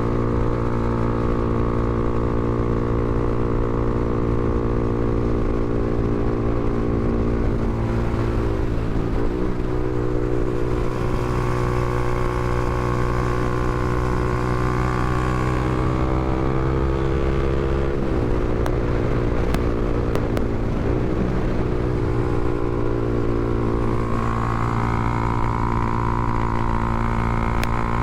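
Honda CBR300R's single-cylinder engine running steadily, with brief small changes in pitch a few times.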